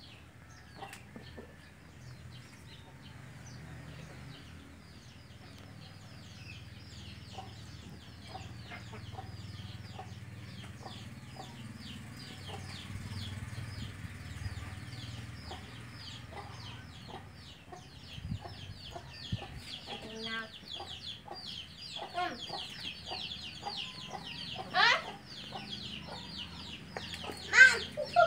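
Chickens clucking and chirping: a quick, continuous run of short, high, falling chirps, with a low steady hum underneath.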